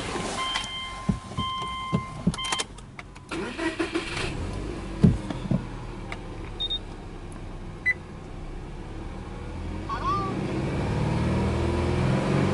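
Subaru Legacy 2.0GT's turbocharged EJ20 flat-four being started: a warning chime beeps repeatedly for the first two seconds or so, a few clicks follow, then the starter cranks and the engine catches at about four and a half seconds and runs. Its revs rise and it grows louder over the last couple of seconds.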